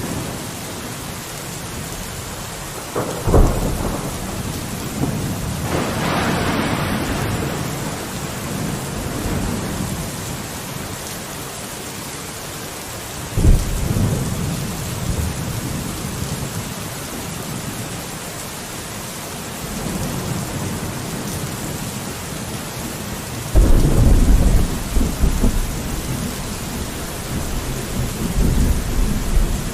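Steady rain falling, with several deep rolls of thunder rising out of it; the longest and loudest comes in the second half.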